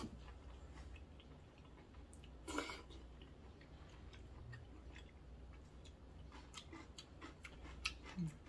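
Close-miked chewing of a mouthful of soft wheat noodles, quiet and wet, with one short louder mouth noise about two and a half seconds in and small faint clicks in the later part.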